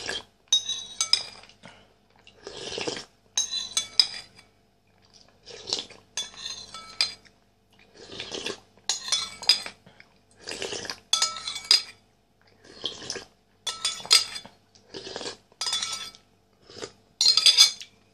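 A metal spoon clinking against a ceramic soup bowl, with soup slurped from the spoon, in repeated short bursts about once a second.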